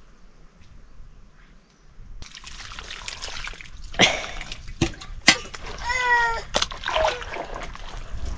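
Wet splashing and slapping of hands smearing wet mud plaster over an earthen floor, starting about two seconds in, with a few sharp slaps. A short high-pitched cry about six seconds in.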